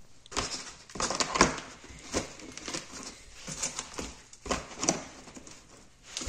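Irregular light taps, knocks and rustles of cardboard and plastic as pizza slices are handled in a cardboard pizza box and packed into a black plastic food container, with a louder knock about a second and a half in.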